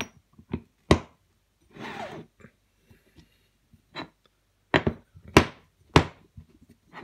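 Machined aluminium engine parts knocked and set down on a wooden workbench during assembly: a sharp knock about a second in, a short scraping slide, then three loud knocks about half a second apart near the end.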